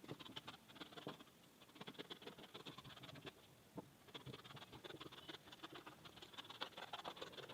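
Scissors cutting through scuba fabric folded into four layers: a faint, irregular run of quick snips and scraping.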